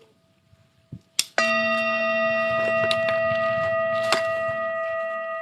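A metal bell struck once about a second and a half in, then ringing on as one loud, long, slowly fading tone.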